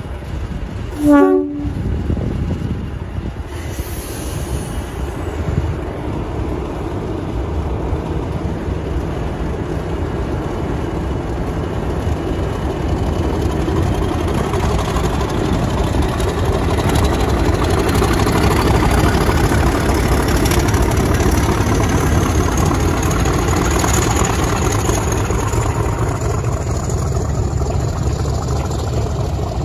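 Class 50 diesel locomotive 50033 with its English Electric 16CSVT V16 engine: a brief horn blast about a second in, then the engine working and growing louder. A thin whine rises in pitch through the middle, and the sound is loudest in the second half.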